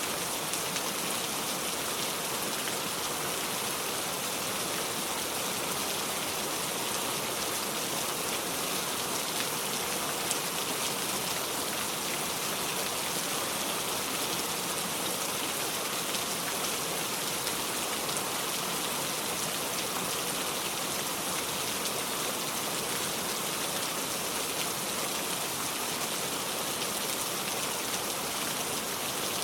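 Heavy rain falling steadily, a dense, even hiss of drops on surfaces with no let-up.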